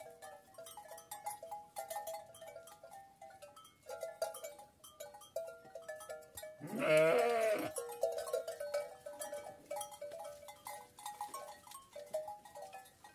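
A single loud, wavering bleat from a Kangal sheep about halfway through, lasting about a second. It rises over a steady run of short, light melodic notes from background music.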